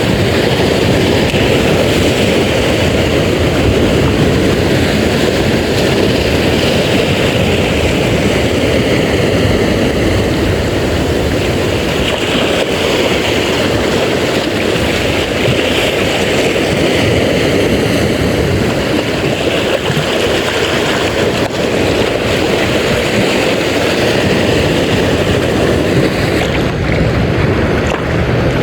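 Steady rush of wind on the microphone and sea waves, without pauses or sudden sounds.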